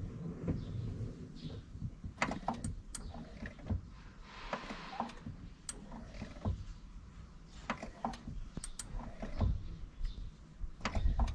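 Scattered clicks, light knocks and rustling from handling things inside a car's cabin, irregular and a few per second at most.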